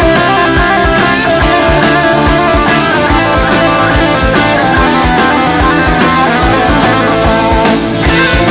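Instrumental passage of a hard rock band: electric guitar over drums with a steady kick drum beat, and a cymbal crash about eight seconds in.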